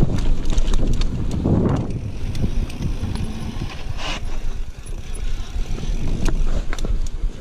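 Mountain bike descending a dirt singletrack: wind buffeting the action camera's microphone as a steady rumble, with tyre noise and many sharp rattling clicks from the bike over bumps.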